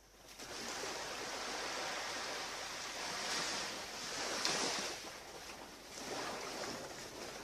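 Waves breaking and washing on a beach, a steady surf hiss that swells to its loudest about halfway through, then rises again briefly a little later.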